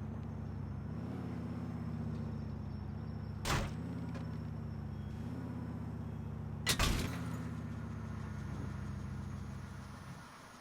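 Video game audio: a steady low mechanical drone with two sharp impacts, one about three and a half seconds in and the other nearly seven seconds in. The drone fades out near the end.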